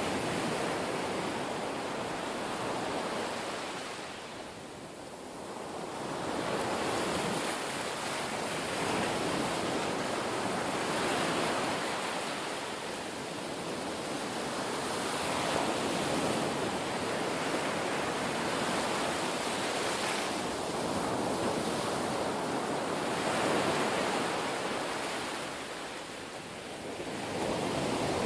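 Ocean surf: a steady rush of waves that swells and eases every few seconds, dipping to a lull twice.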